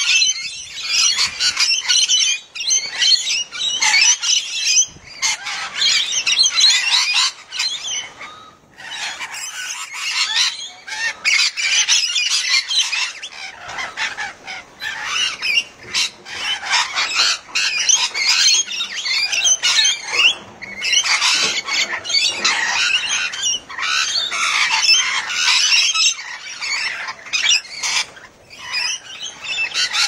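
A flock of rainbow and scaly-breasted lorikeets screeching and chattering without pause, many high calls overlapping, with a couple of brief lulls.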